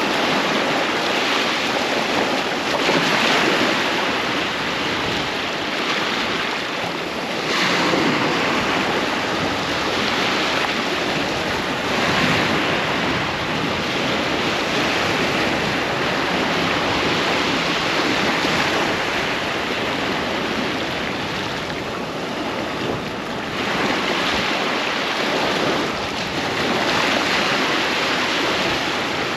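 Ocean waves breaking and washing up on a sandy beach, surging every few seconds over a steady roar of surf, with some wind.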